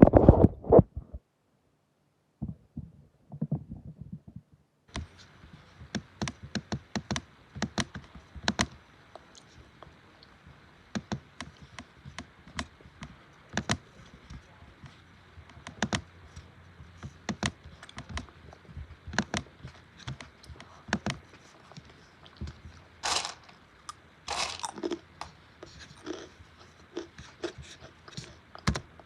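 Irregular sharp clicks and crunchy crackles, a few of them louder, over a faint steady hiss that sets in about five seconds in.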